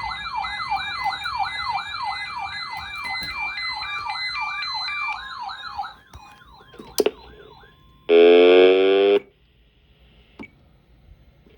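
Electronic siren-type alert tone from a weather-alert receiver: rapid repeating rising sweeps, about three a second, with a stepping beep above them, stopping about six seconds in. A sharp click follows, then a loud one-second tone burst a little after eight seconds, then only faint hiss.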